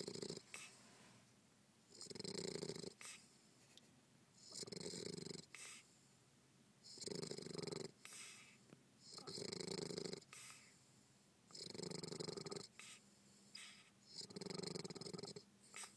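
A sleeping bulldog snoring. About seven snores come at an even pace, one every two to two and a half seconds, each lasting about a second.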